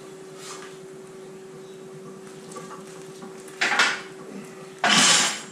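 Hard objects clattering: two sharp clinks about three and a half seconds in, then a louder clatter of about half a second near the end, over a steady low hum.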